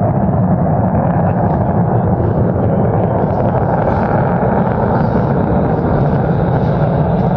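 Boeing 737-200's Pratt & Whitney JT8D turbofan engines running, a loud, steady low roar.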